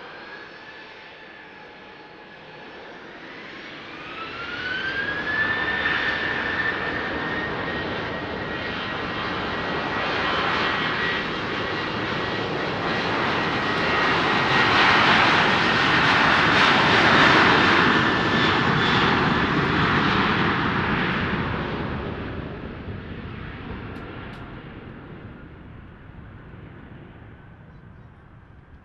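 Boeing 737-800's CFM56-7B turbofan engines spooling up to takeoff thrust: a whine rises in pitch about three seconds in, then holds as a steady high tone. The engine noise swells to its loudest as the jet accelerates past on the takeoff roll, then fades as it runs away down the runway.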